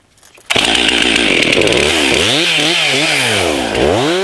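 Chainsaw starting about half a second in and running at high revs while limbing a felled pine. Its pitch repeatedly sags and climbs back.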